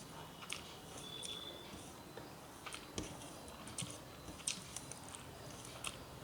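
Close-miked mouth sounds of a person eating rice and vegetable dishes: irregular soft wet clicks and lip smacks from chewing, the loudest about four and a half seconds in.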